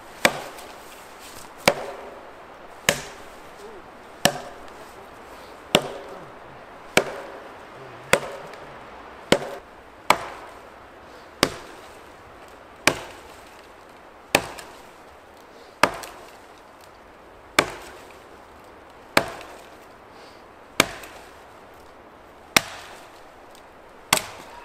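An axe chopping into a fallen tree trunk: a steady run of sharp, single wooden blows, roughly one every one and a half seconds, each dying away quickly.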